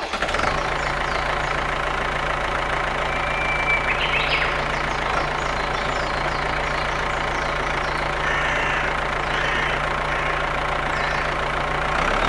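An engine running steadily at idle, a constant low hum with an even rumble.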